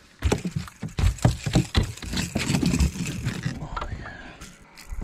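A freshly landed striped bass flopping on a carpeted boat deck. It makes an uneven run of thumps and slaps that thickens about two seconds in and fades out near the end.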